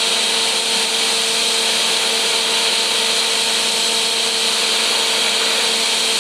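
TIG welding arc burning steadily on stainless steel under argon shielding gas: an even, continuous hiss with a low steady hum underneath.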